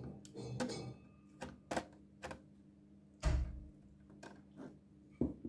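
Irregular sharp clicks and taps of hard laptop parts and tools being handled, with a louder knock about three seconds in.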